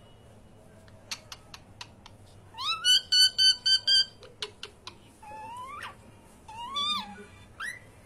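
Cockatiel whistling: about a second in a few sharp clicks, then a quick run of rising notes at about four a second, followed by two longer whistles that slide upward and a short chirp near the end.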